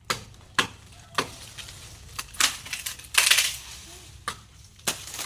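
A series of sharp, irregular clicks and knocks, with a longer rough burst about three seconds in.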